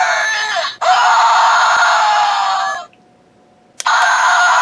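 Battery-powered Regan screamer toy playing its recorded demonic screams through its small speaker: loud, harsh and thin, with no low end. It cuts out for about a second past the middle, then starts screaming again.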